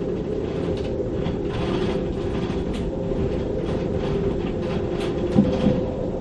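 Gale-force wind in a moored sailboat's rigging: a steady roar with a held hum in it and scattered light ticks. A brief louder knock comes about five and a half seconds in.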